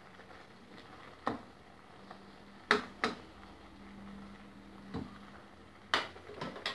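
A nylon spoon stirring a pot of boiling watermelon rind jam in its final boil-down, knocking against the sides of the enamel pot in several sharp clicks over a faint bubbling. The loudest knock comes a little under three seconds in, and a short run of knocks comes near the end.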